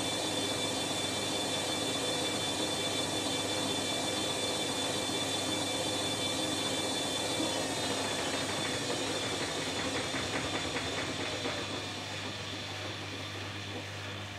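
Electrolux EWF9042R7WB front-loading washing machine spinning its drum at high speed with a steady whine. About halfway through, the whine falls in pitch and the machine gets quieter as the spin slows down.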